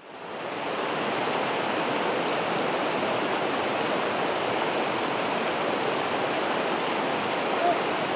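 River water rushing steadily over rocks in a shallow riffle, fading in over the first second.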